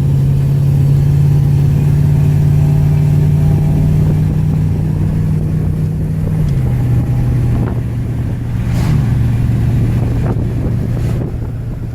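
V8 engine of a Volvo car running at a steady pull, heard from inside the cabin with road noise underneath. The engine note drops to a lower steady pitch about halfway through.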